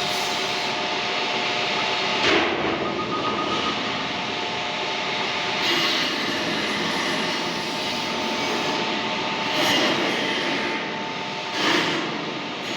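Metal lathe running with a steady mechanical whine, swelling briefly louder four times.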